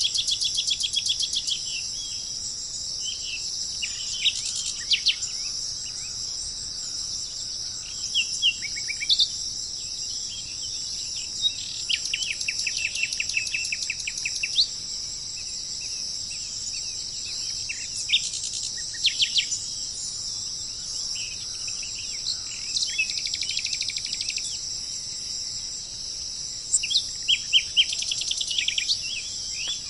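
Small birds chirping and giving rapid trills of short notes at intervals, over a steady high-pitched buzz like insects or crickets.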